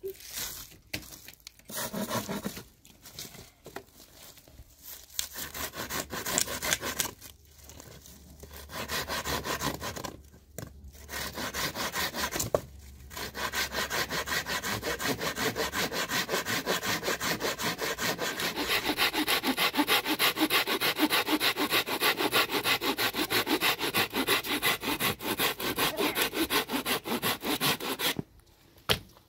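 Hand saw cutting through a wooden branch for firewood: a few short bouts of back-and-forth strokes with pauses between them, then a long run of quick, even strokes that stops near the end.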